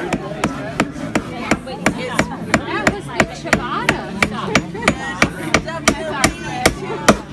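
A child hammering a nail into a wooden birdhouse board with a claw hammer: quick, even taps, about three a second.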